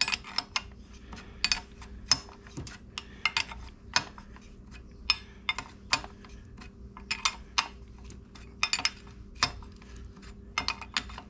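Irregular metallic clicks and clinks of a wrench and socket working the locknut on a Harley Sportster's primary chain adjuster as it is tightened, a few clicks a second and sometimes in quick pairs.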